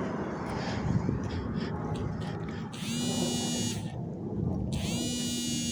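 A mobile phone buzzing for an incoming call, in pulses about a second long roughly every two seconds, starting about halfway in, over the steady hiss of a pressure washer spraying.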